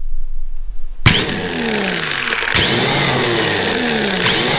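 A snowblower's electric starter motor, off the engine on the bench, switched on about a second in and spinning up to a steady whir, with two sharp clicks along the way. It runs freely, which the owner takes to mean the starter is not the cause of the no-start.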